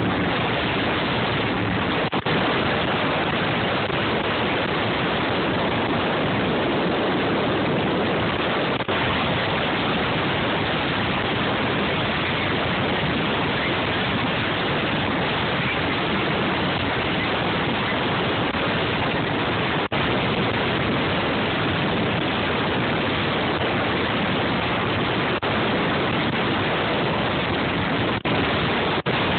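Speedboat running fast on open water: a steady, dense rush of wind and water noise, with the wind blowing across the phone's microphone.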